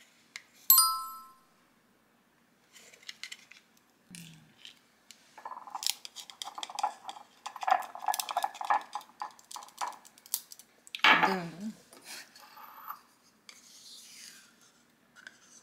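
Crockery and cutlery handled in a kitchen. A single ringing clink comes about a second in, then scattered knocks, a busy stretch of clinking and clattering in the middle, and a loud scrape near the end.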